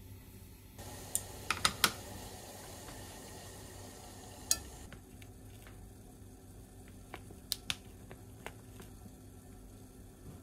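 Chopsticks tapping on a ceramic plate as slices of rolled omelette are set down: a quick run of sharp clicks about a second in, and one more a few seconds later. Fainter light ticks follow near the end.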